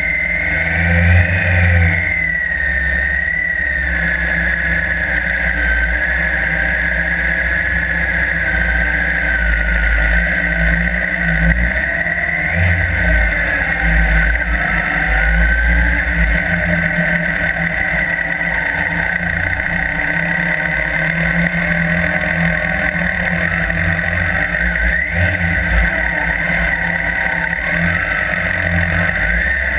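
Police motorcycle engine running through a riding course, its pitch rising and falling repeatedly as the throttle is opened and closed.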